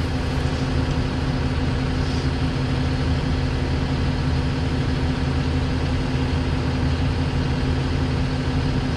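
Engine of a Bateman RB26 self-propelled sprayer idling steadily at a constant pitch, with the machine standing parked.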